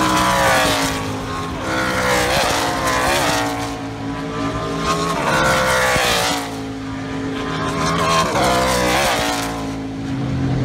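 NASCAR stock car V8 engines passing at speed, several one after another, the loudness swelling as each goes by. The engine note sweeps down and back up repeatedly with braking, downshifts and throttle as the cars work through the corner.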